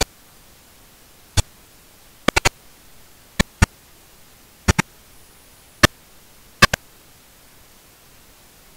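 Computer mouse clicking, about a dozen sharp clicks, some in quick pairs and one run of three, stopping about seven seconds in, over a steady microphone hiss.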